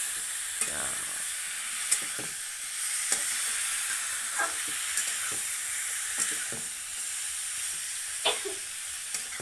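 Chicken pieces sizzling in plenty of hot oil in a kadhai: a steady frying hiss with scattered sharp pops and clicks.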